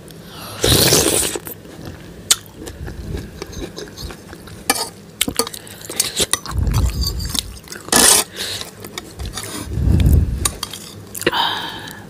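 Metal fork and spoon clinking and scraping against a ceramic bowl, many short clicks, with eating sounds as mouthfuls of soupy Maggi noodles are taken; louder noisy bursts about a second in and again near eight seconds.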